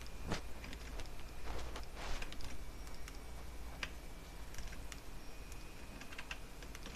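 Scattered clicks of a computer mouse and keyboard, a handful spread unevenly over several seconds, over a low steady hum.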